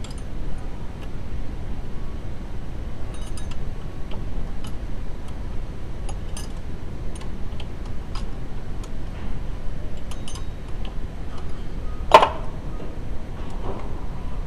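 Scattered light metallic clicks and clinks of tools and parts being handled, with one louder metal clank about twelve seconds in, over a steady low rumble.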